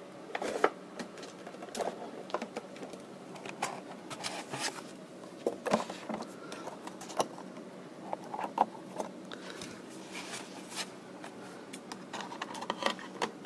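Handling noise on the plastic case of a Brionvega TS505 portable radio: irregular small clicks, taps and rubbing as fingers move over it and open the battery compartment door.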